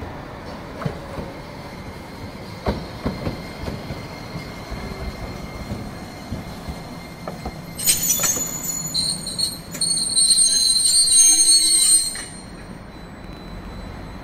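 Kagoshima City Yutram low-floor tram rolling in over the rails with a few sharp clicks from the track, then a loud, high-pitched steel wheel squeal for about four seconds as it draws up at the stop, cutting off suddenly and leaving a low rumble.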